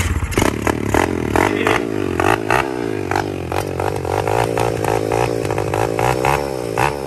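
Pit bike's small single-cylinder engine running and being revved, its pitch wavering up and down.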